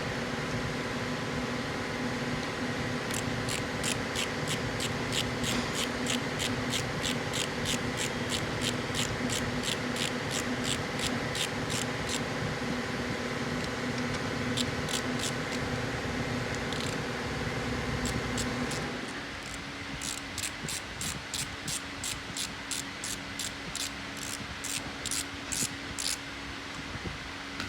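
Hand ratchet wrench clicking in two long runs of even strokes, about three clicks a second, as bolts are worked loose. Under it runs a steady machine hum that drops off about two-thirds of the way through.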